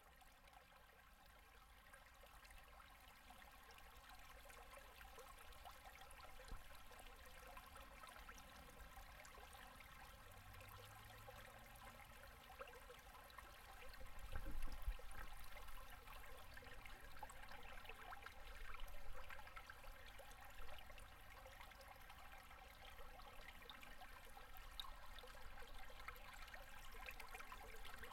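Shallow mountain river at low winter flow, gurgling faintly over and under its ice. The sound fades in over the first few seconds, with a brief low rumble about halfway through and a shorter one a few seconds later.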